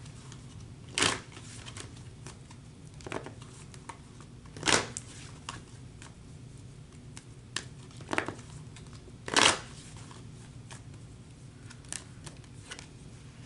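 A deck of oracle cards being shuffled by hand: soft flicking and ticking of the cards throughout, with four louder swishes about a second in, near five seconds, and around eight and nine and a half seconds.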